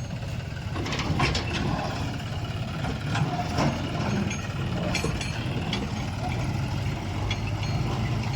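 Heavy diesel machinery running steadily, the backhoe loader and tractor at work, with a few short knocks and clanks scattered over the engine sound.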